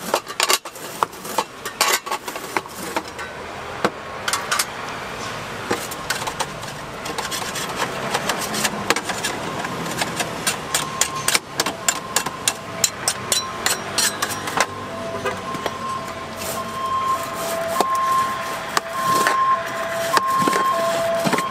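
A cleaver cutting a pressed slab of puffed rice cake into bars on a metal tray: a quick series of crisp cuts and knocks. From about two-thirds of the way in, a two-note tone repeats over a rising background hum.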